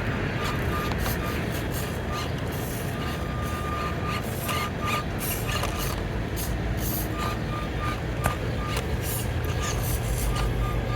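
Axial SCX24 Deadbolt 1/24-scale RC crawler's small electric motor whining in short on-off pulses and longer pulls as the throttle is worked, with scattered clicks of tires and chassis scrabbling on rock while it struggles to climb a section.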